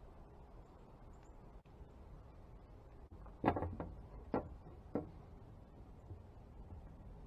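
Handling knocks on a glass tabletop as a spinning reel on a rod and a wire basket are set down: one sharp clatter about halfway through, then two lighter knocks about half a second apart.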